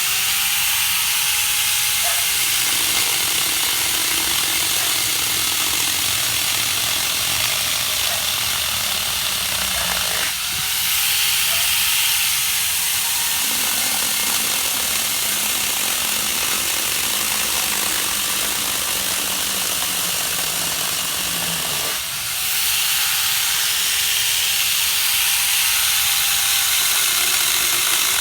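Chainsaw running continuously while cutting through mango tree wood, with brief dips in level about ten and twenty-two seconds in.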